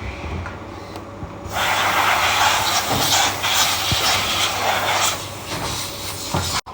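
Steady machine hum. About a second and a half in, a loud hiss starts and runs for about three and a half seconds, then fades back to the hum. The sound cuts off abruptly just before the end.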